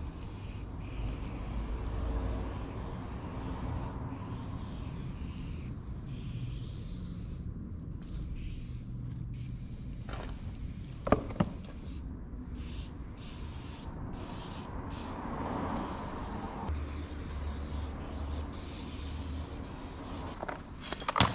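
Aerosol spray-paint can hissing in long bursts with short breaks as a white fill is sprayed on, over a low rumble. Two sharp knocks about ten and eleven seconds in.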